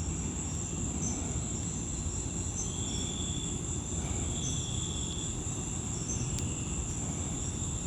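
Crickets trilling in a steady high chorus, with short repeated chirps on top and a low steady rumble underneath.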